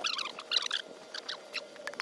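Snow crunching and squeaking underfoot in quick, irregular crisp bursts.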